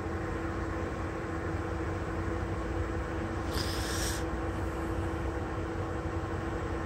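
Steady mechanical hum of room ambience, a constant low drone with one steady tone, and a short high hiss about three and a half seconds in.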